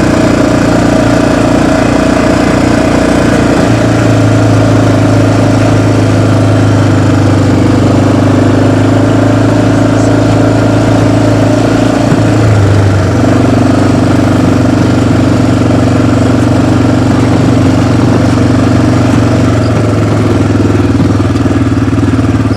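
Engine of a small ride-on off-road vehicle running steadily while it is driven over rough field ground, its note dropping briefly about twelve seconds in and then settling again.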